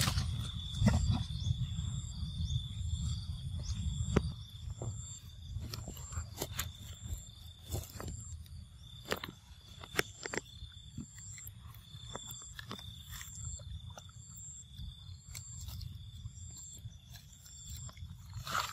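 Forest ambience: a steady high drone with a higher pulsing call repeating a little faster than once a second. Over it come scattered sharp clicks and rustles as macaques climb bark and handle corn, with a low wind-like rumble in the first few seconds.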